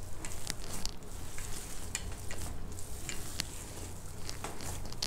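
Hands squeezing and mixing spiced mashed boiled potato in a stainless steel bowl: a soft, wet squishing with scattered light clicks.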